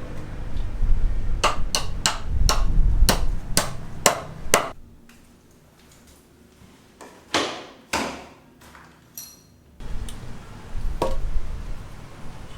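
Hammer blows: a run of about eight sharp strikes, roughly two a second, then a pause and a few scattered strikes.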